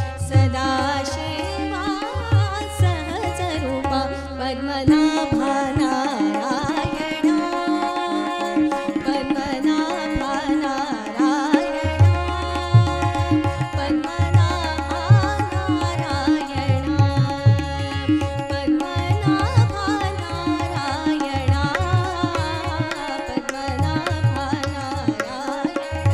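A woman singing a devotional Marathi abhang to harmonium and tabla. The harmonium holds steady chords throughout, and the tabla drops out about five seconds in, then comes back about twelve seconds in.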